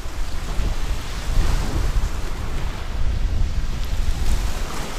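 Small sea waves washing onto a pebble beach, with wind buffeting the microphone in a heavy low rumble.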